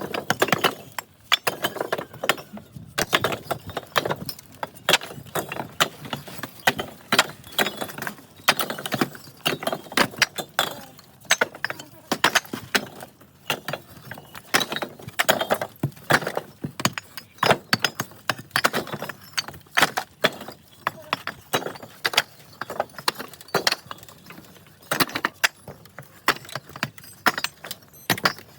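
Hard clay bricks clinking and knocking against one another as they are handled and stacked, in irregular quick clusters.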